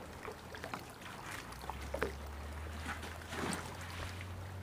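Light water splashes and small knocks from a bass boat as a freshly caught spotted bass is handled, with a low steady hum coming on about a second and a half in.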